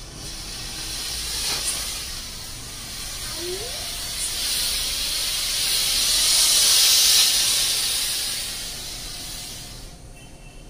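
Handheld rainbow fog (colour smoke) firework hissing as it burns. The hiss builds to its loudest about seven seconds in and dies away near the end.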